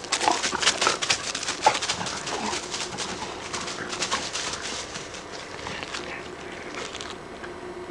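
Footsteps crunching and rustling through dry fallen leaves, a dense irregular crackle that thins out about five seconds in and has mostly faded by about seven seconds.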